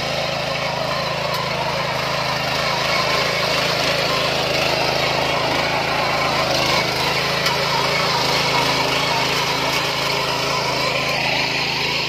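ASPPE 5.5 hp petrol power weeder running steadily under load, its engine and gear-driven tines churning through dry soil.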